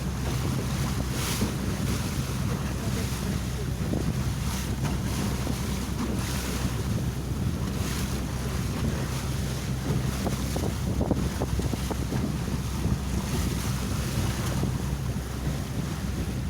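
Motorboat engine running steadily at speed, with wind buffeting the microphone and water rushing past the hull.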